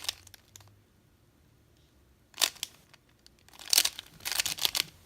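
Layers of a 3x3 Rubik's Cube being turned by hand: quick plastic clicking and scraping, a short burst about two and a half seconds in and a longer run of turns near the end.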